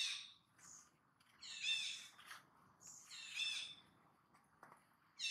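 Repeated short, high-pitched wavering animal calls, one about every second and a half to two seconds, the loudest about a second and a half in.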